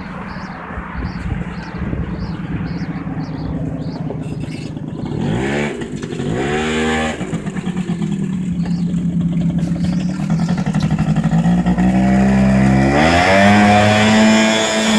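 Small quad bike's engine running at low speed, revved up and back down twice about halfway through, then running steadily, and revved up again and held higher near the end, growing louder. A faint high chirp repeats about three times a second in the first few seconds.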